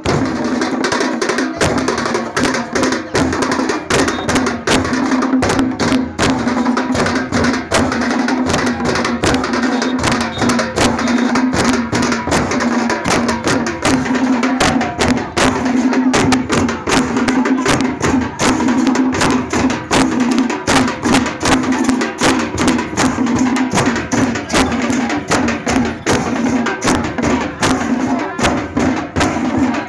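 Procession drums beating a fast, steady rhythm of sharp strokes, over a steady low droning tone. This is the kind of massed drumming played in a Muharram procession.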